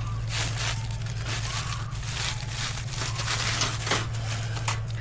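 Wire cage trap being handled and set, with irregular rattling, scraping and rustling of the mesh and mechanism over a steady low hum.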